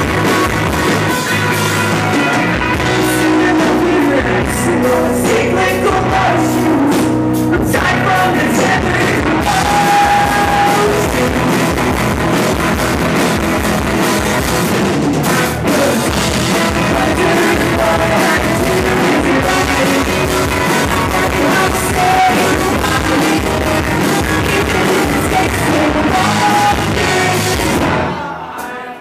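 Live rock band playing loudly, electric guitars over drums. The sound drops away briefly near the end.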